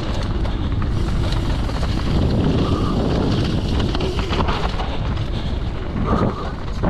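Mountain bike descending a trail at speed: wind buffeting the microphone over the rolling noise of the tyres, with scattered clicks and knocks from the bike over rough ground.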